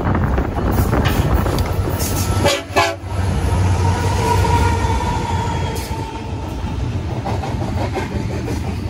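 Union Pacific diesel freight locomotives passing close at speed, followed by double-stack container cars, with a loud steady rumble of engines and wheels on the rails.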